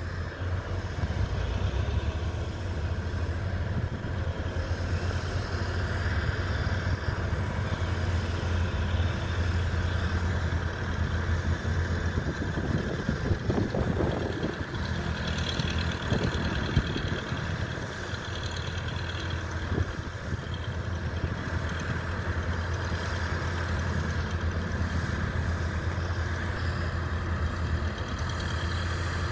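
Diesel engines of a hydraulic excavator and a small crawler bulldozer running steadily with a deep hum, revving up and down for a few seconds about halfway through as the machines work to free the bulldozer bogged in soft fill.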